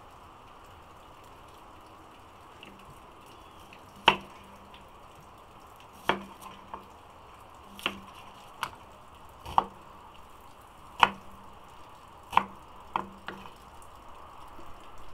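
Chef's knife cutting an onion on a bamboo cutting board: about nine sharp knocks of the blade hitting the board, starting about four seconds in and coming irregularly every one to two seconds, over a faint steady background noise.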